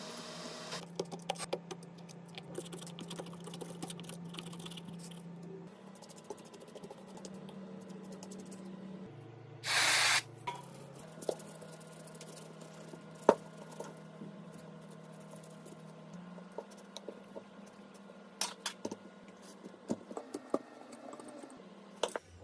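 Small tools clicking and tapping on a phone during a back-glass repair, with a short hiss about ten seconds in and a low steady hum underneath.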